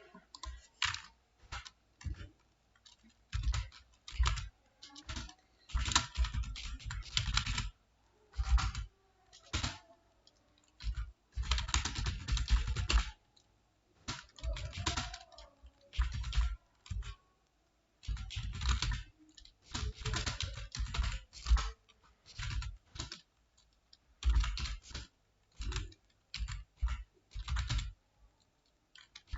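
Computer keyboard typing, in bursts of rapid keystrokes separated by short pauses.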